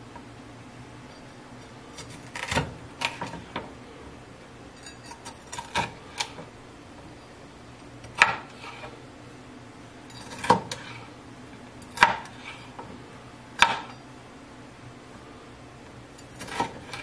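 Kitchen knife slicing a red bell pepper on a cutting board: scattered sharp knocks of the blade striking the board, single cuts with pauses of a second or more between them.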